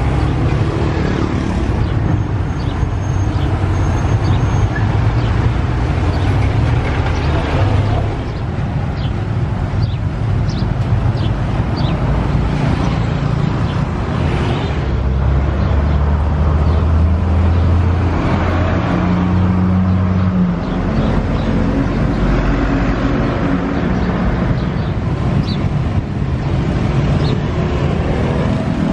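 Steady road traffic: vehicle engines and tyres making a continuous low rumble, with one passing vehicle's engine droning louder about halfway through.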